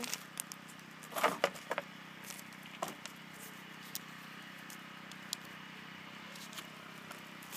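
Handling noise: faint scattered crinkles and light clicks from a bubble-wrap package and small items on a wooden tabletop, loudest in a short cluster about a second in.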